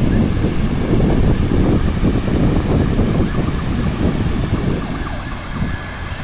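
Wind buffeting the phone's microphone: a loud, gusty rumble that eases a little near the end.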